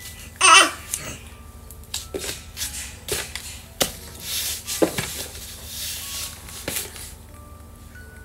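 A short, loud, high-pitched squeal, then scattered knocks and taps with a rustle of handling in the middle.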